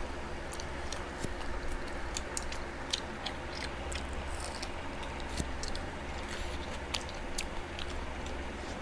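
Close-up eating sounds: chewing and biting, with scattered small clicks and crunches, over a steady low hum.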